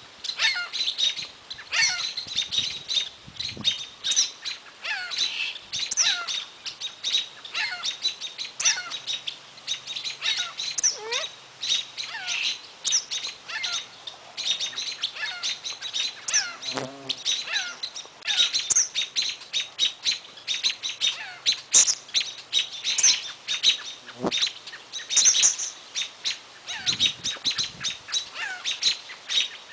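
Songbirds chirping and calling, many short chirps and falling whistled notes overlapping without a break.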